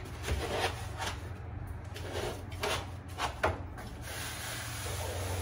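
Black foam drawer-liner sheet rubbing and scraping against a metal tool-chest drawer as it is pressed in for a snug fit, in several short scrapes over a steady low hum.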